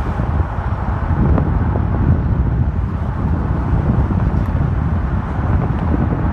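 Wind rushing in through an open car window and buffeting the microphone, over the road noise of the moving car.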